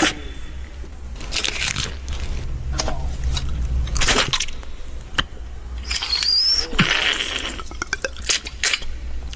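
Human beatbox mouth sounds imitating the making of guacamole: a run of sharp clicks and short noisy scrapes, with a brief wavering whistle about six seconds in.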